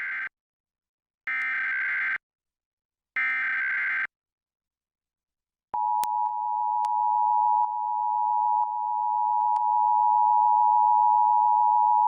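Emergency Alert System SAME header: three short buzzy bursts of data tones, the first ending just as the sound begins. After a pause of about a second and a half comes the EAS attention signal, a steady two-tone alert that starts about six seconds in and holds.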